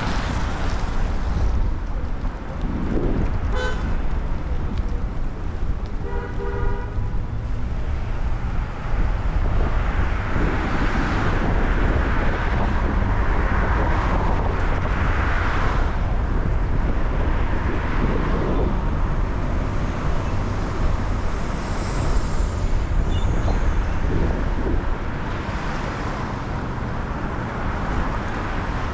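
City traffic on rain-soaked streets: a steady low rumble of engines and road, with a tyre hiss through water that swells and fades as vehicles pass. A car horn honks briefly about three seconds in, and again for about a second a few seconds later.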